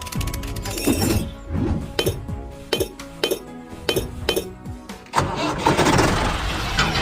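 Background music with sharp clicks falling on the beat; about five seconds in it becomes a denser, louder passage.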